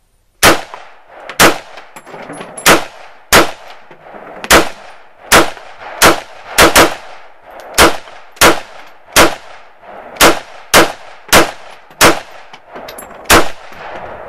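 Yugoslavian SKS semi-automatic rifle in 7.62×39 mm, fitted with a Phantom muzzle brake, firing about seventeen shots in quick succession, irregularly spaced half a second to a second and a half apart, each shot ringing briefly with an echo.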